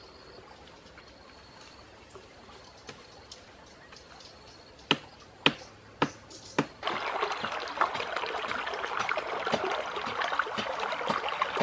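Four sharp cracks about half a second apart, branches snapping, then from about halfway a steady trickling of a shallow stream running over stones.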